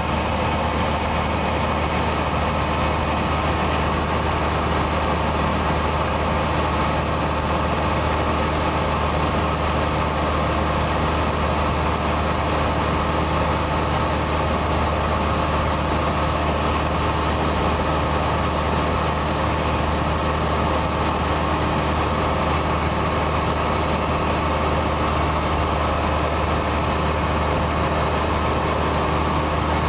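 Cessna 172S's four-cylinder Lycoming engine and propeller running steadily in flight, heard from inside the cabin as a constant low drone.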